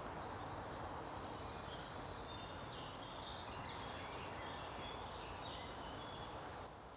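Several small birds singing with short, overlapping chirps and trills, heard faintly over a steady background hiss of woodland ambience.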